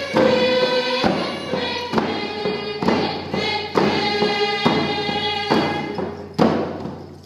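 A group of voices singing a Northwest Coast First Nations song together, with a hand-held frame drum struck evenly about once a second.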